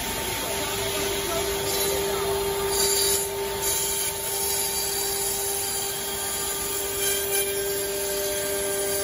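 Four-axis CNC router spindle running with a steady whine while its bit carves a curved surface into a block, over a rasping cutting noise that swells briefly about three to four seconds in.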